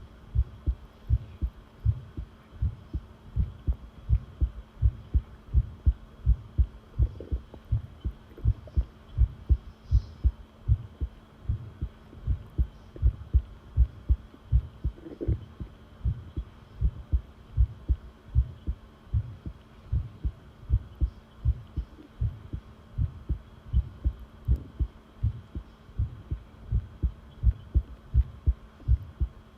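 Human heartbeat recorded close up: low thumps repeating in a steady, quick rhythm, with a faint steady hum underneath.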